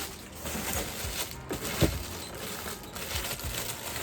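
Plastic fidget toys being handled: a few soft knocks and small clicks, with one sharper click a little under two seconds in.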